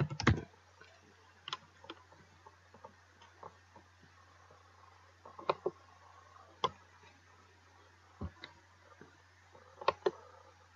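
Computer keyboard and mouse clicks. A few scattered keystrokes in the first four seconds finish a typed search, then single clicks come every second or two, with two close together near the end. A faint steady low hum runs under them.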